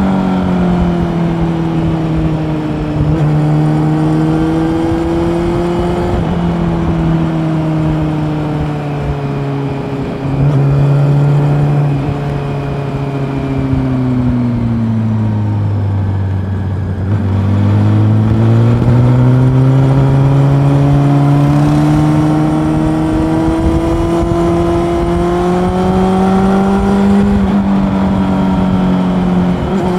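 Honda CB400 Super Four's inline-four engine under way, rising and falling with the throttle, with several sudden pitch steps at gear changes. The note sinks to its lowest about halfway through, then climbs steadily for about ten seconds before stepping down again near the end.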